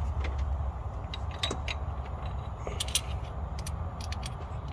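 Metal parts of a power steering pulley puller clinking and clicking lightly as they are handled and fitted onto the pump pulley: a scattering of small clicks over a steady low rumble.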